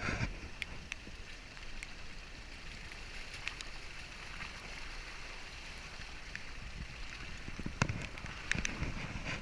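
Volkswagen Amarok 4x4 pickup rolling slowly along a wet, muddy dirt track: a low steady running noise from engine and tyres, with scattered small clicks of grit and stones under the tyres and a few louder knocks near the end.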